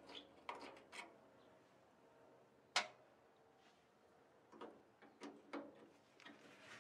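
Faint, scattered clicks and light scrapes of a screwdriver being handled against the Model A's wooden roof rail and its screwed metal strip, with one sharp click a little under three seconds in.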